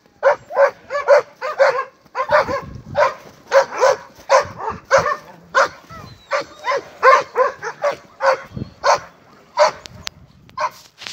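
A dog barking rapidly and without a break, about two to three short barks a second.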